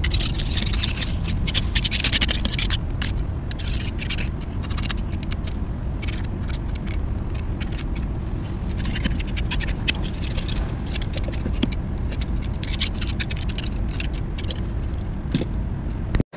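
Utility-knife blade scraping dried residue off a cast aluminium motorcycle bracket in quick repeated strokes, over a steady low rumble.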